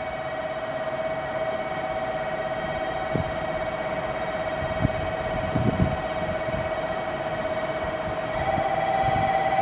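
Electric train approaching from a distance, heard as a steady high hum of two close tones that slowly grows louder. A further tone joins near the end, and there are a few faint low knocks.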